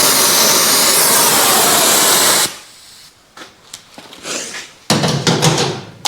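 Gas torch flame hissing steadily while heating a bearing to expand it and free a seized grub screw, shut off suddenly about two and a half seconds in. Then light clinks and knocks of metal tools, with a short louder clatter near the end.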